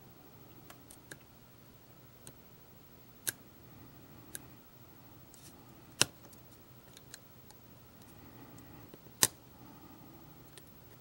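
Scattered small clicks and ticks of a hobby knife's blade tip against the hard plastic of a model passenger car, as small pieces are worked into place; two sharper clicks stand out, about six and nine seconds in.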